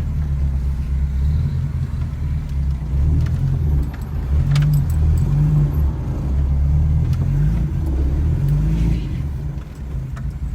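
Ford Escort RS2000 race car's engine running at low revs in first gear, an uneven low rumble, with a few light rattles on top.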